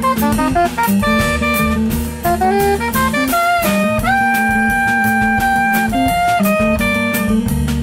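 Jazz saxophone playing the melody over upright double bass and a drum kit with cymbals. About two seconds in, a quick run of notes climbs, then one long note is held from about four to six seconds in.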